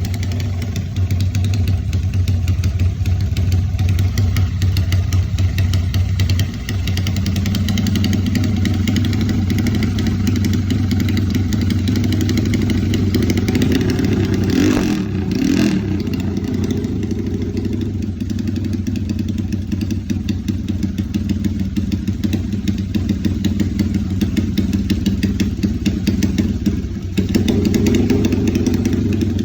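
Honda GL motorcycle engine running steadily through an aftermarket Fantera-style silencer with a blue-moon tip, for an exhaust sound check. The note shifts slightly a few times, with a brief change about halfway through.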